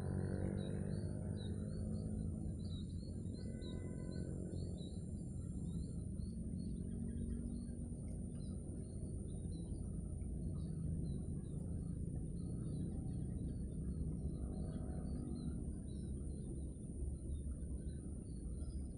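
Muffled background music with held low notes, under rapid faint high chirping from birds and a thin steady high tone.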